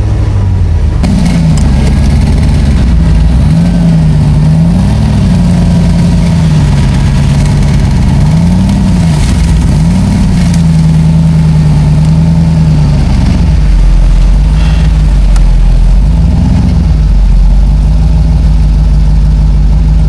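An off-road 4x4's engine running under load on the trail, revved up and down several times as the driver tries to pull forward.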